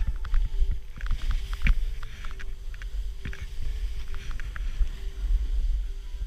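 Wind rumbling on a GoPro's microphone while snowboarding through powder, with the board's hiss in the snow and scattered clicks and knocks from the board and gear.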